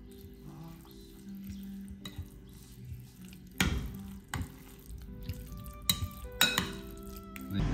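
Metal spoon stirring grated carrot into yogurt in a glass bowl, with several sharp clinks of the spoon against the glass in the second half, over soft background music.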